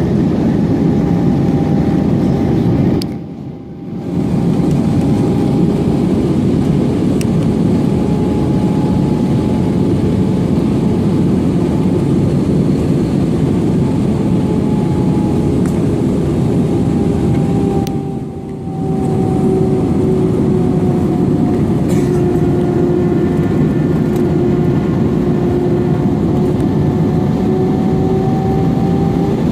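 Airbus A320 jet engines heard from inside the passenger cabin: a steady loud drone with a low hum whose pitch drifts slightly. The sound drops away briefly twice, about three seconds in and near the middle.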